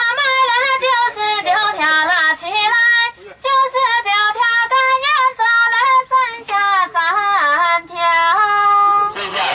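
A high female voice singing a melody, with gliding notes and a long held note near the end.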